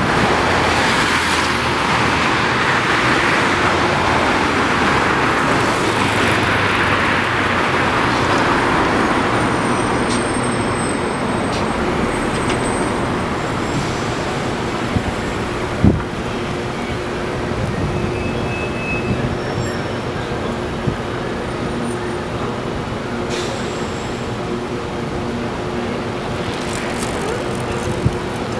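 Busy city street traffic: a steady wash of passing cars and buses, heavier in the first ten seconds. There is a single sharp knock about sixteen seconds in.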